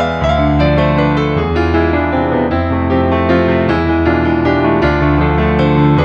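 Background music: piano or electric-piano chords over a sustained bass that changes roughly every second.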